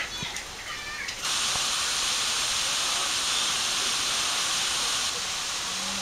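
Birds chirping for about a second, then a sudden switch to a loud, steady hiss that carries on to the end and eases slightly near the end.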